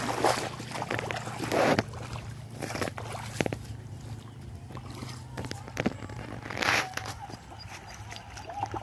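Rubber boots wading through shallow muddy ditch water, sloshing and splashing with the steps, with a few louder splashes: one just after the start, one near two seconds in and one near the end.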